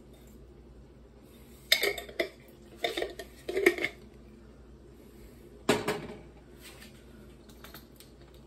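Kitchen clatter as small spice jars and utensils are picked up and set down beside the stove, in several short clinking bursts, the last about six seconds in.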